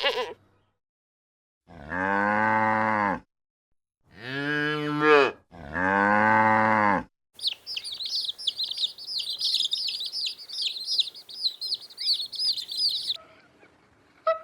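A cow mooing three times, each a long low call, followed by about six seconds of rapid high-pitched chirping from small birds.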